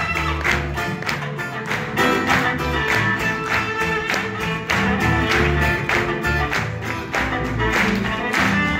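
Live acoustic band playing an instrumental passage: violin, two strummed acoustic guitars and upright double bass, with a steady, even strumming rhythm.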